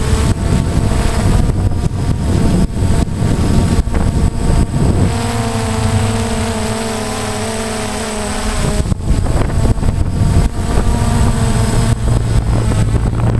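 DJI Phantom quadcopter's motors and propellers whirring, heard through its onboard GoPro, with rough wind buffeting on the microphone. From about 5 to 9 seconds in the buffeting eases and the motors' steady hum comes through more cleanly.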